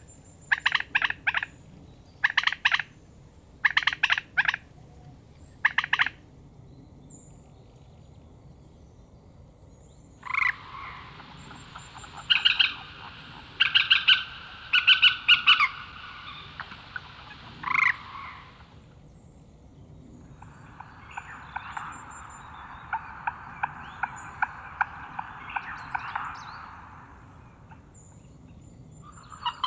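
Loud, harsh animal calls made of rapid pulses. For the first few seconds they come in short groups, then in two long rattling runs of several seconds each.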